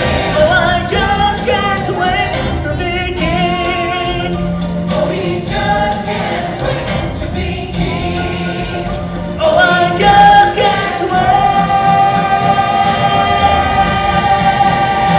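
A choir singing held notes over backing music; the singing swells louder about ten seconds in.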